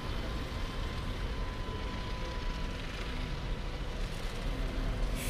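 City street traffic: a steady low rumble of passing vehicles, with a faint steady whine during the first few seconds.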